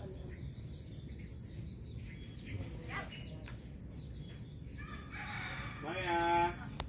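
Steady high-pitched insect chirring, with a rooster crowing near the end as the loudest sound.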